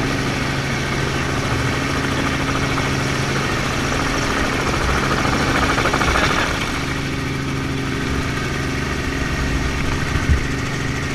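Helicopter in flight, heard from its open side door: a steady drone of engine and rotor with a broad rush of noise that swells around the middle. A brief knock sounds near the end.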